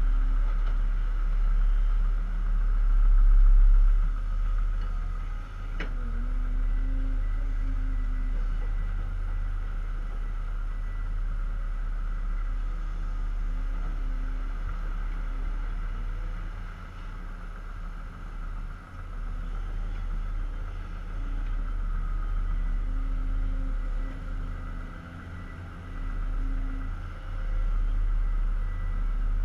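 Heavy diesel engines of a Hyundai hydraulic excavator and a Bell articulated dump truck running steadily while the excavator loads clay into the truck, the engine note rising and falling with the digging and swinging. A single sharp knock sounds about six seconds in.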